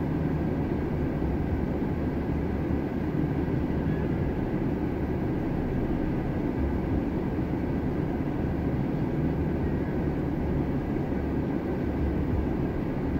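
Steady low rumble inside a stationary car: the engine idling with the air-conditioning fan running.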